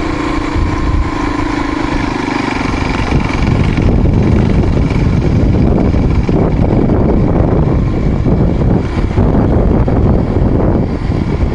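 Dirt bike engine running while under way. Its steady note fades after about three seconds, and a louder rough rushing noise takes over from about four seconds in.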